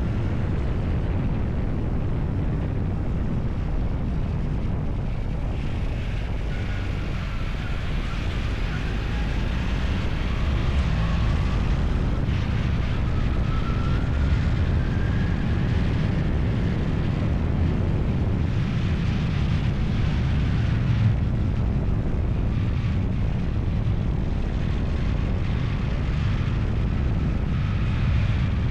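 Engine running steadily with a continuous low rumble, with faint wavering higher tones over it from about six seconds in.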